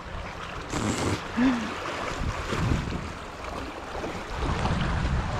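River water rushing and splashing around the legs of wading anglers, with a brief louder rush about a second in. A low rumble of wind on the microphone grows near the end.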